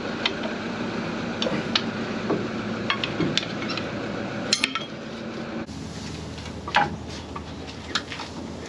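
Scattered light metallic clicks and clinks of a hand tool working on a Land Cruiser's front hub while the ABS sensor is being unbolted, over a steady background hum.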